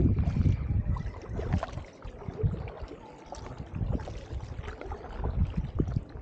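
Kayak paddle strokes in calm river water: the blades dip and pull with small splashes and drips. A low rumble runs over the first couple of seconds, then fades.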